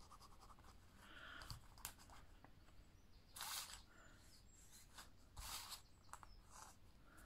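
Near silence, broken by two brief soft rustles of paper card being handled and pressed down, and a few faint taps.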